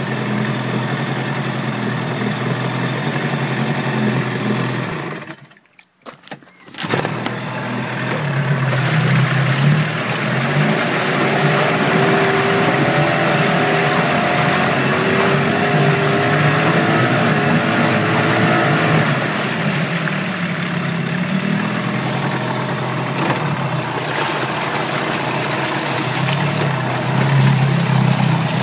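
A 2006 Yamaha 15 hp twin-cylinder two-stroke outboard (15FMH) running steadily in a test tank. About five seconds in, the sound drops out for roughly a second and a half, then the engine runs on.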